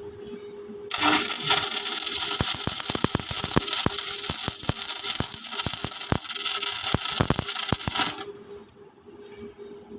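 Welding arc on stainless steel, crackling and sizzling with irregular sharp pops. It starts about a second in and cuts off about eight seconds in, over a steady hum.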